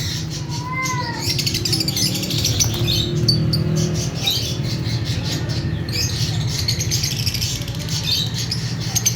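Lovebirds chirping and twittering rapidly in an aviary, with a steady low hum underneath. A single clear whistled note rises and falls about a second in.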